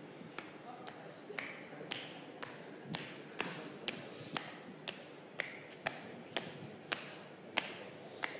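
A person stamping their feet on a tiled floor, about two stamps a second in a steady rhythm.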